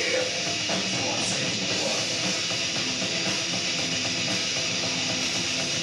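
Rock band playing live, electric guitars to the fore over bass and drums, in a dense, steady wall of sound.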